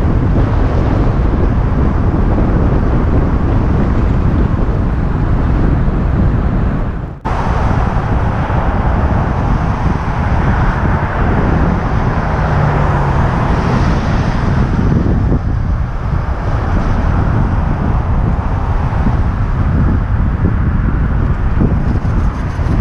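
Wind rushing over the microphone of a moving bicycle, with road traffic passing alongside; the noise drops out briefly about seven seconds in.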